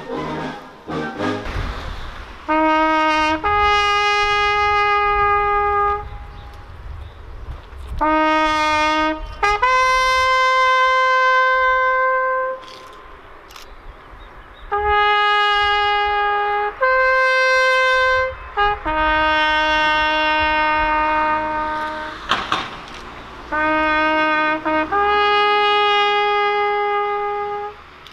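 Solo trumpet playing a slow ceremonial bugle call. Each phrase is a short pick-up note rising into a long held note, and the phrases are separated by short pauses.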